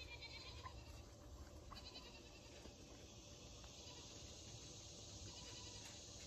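Near silence: faint outdoor background with two short, distant high-pitched animal calls, one at the start and one about two seconds in.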